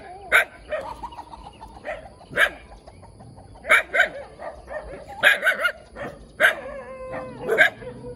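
Black-and-tan puppy barking: a run of short, sharp, high yaps every second or so, some in quick pairs.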